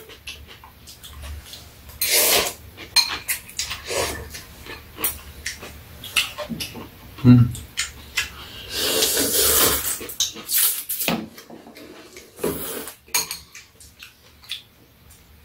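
Two people eating janchi guksu (thin wheat noodles in broth) with chopsticks: repeated slurps of noodles lasting about a second each, over frequent light clicks of metal chopsticks against the bowls. A single louder dull knock comes about seven seconds in.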